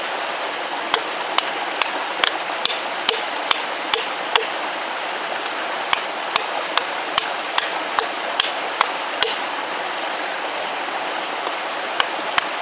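TOPS Tom Brown Tracker knife chopping a point onto a wooden stake, hatchet-style: quick, regular strikes at about two a second, in three runs with short pauses between them, the last starting near the end. A steady rushing noise runs underneath.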